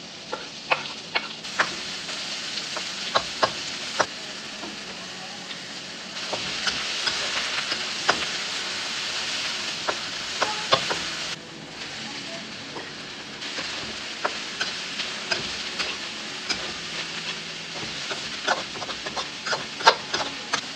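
Spring roll filling stir-frying in a pan: a steady sizzle with frequent sharp clicks and taps of the spatula against the pan.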